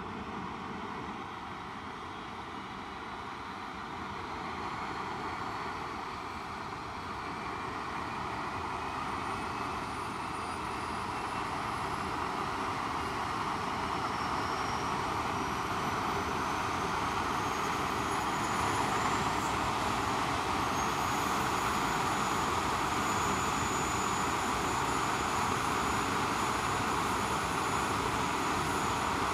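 English Electric Lightning's Rolls-Royce Avon turbojets spooling up: a steady jet rush with a thin whine that slowly rises in pitch as it grows gradually louder. About two-thirds of the way in, the whine steps to a higher, brighter tone.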